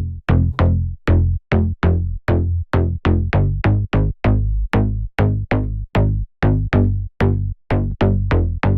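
The 'Bass Clear' slap house bass preset in the Serum synthesizer playing a repeating bass line of short, punchy notes, about two or three a second, each with a sharp attack and quick decay, the pitch moving from note to note.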